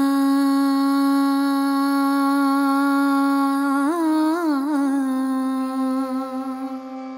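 Indian classical-style intro music: one long held note, with a short wavering ornament in pitch about four seconds in, then held again and getting quieter near the end.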